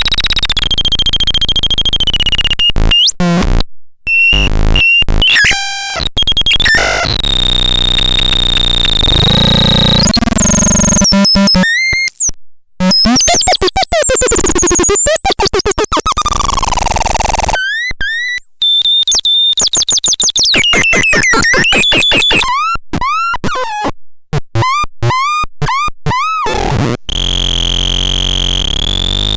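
Electronic synthesizer making harsh bird-like chirps and pitch glides, with held tones and noisy stretches that cut off and restart abruptly. A rapid series of short rising chirps comes in the second half.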